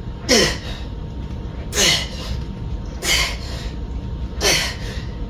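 A man's sharp, forceful breaths, four in a row about a second and a half apart, each with a short voiced tone sliding down in pitch, in time with the reps of a barbell bent-over row. A steady low hum runs underneath.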